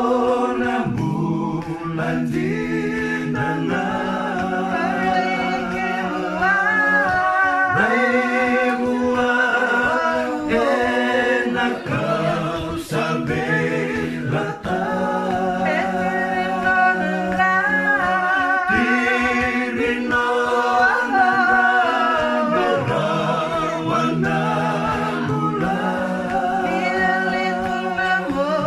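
Unaccompanied choir singing in several harmony parts, with long-held low notes under the moving upper voices.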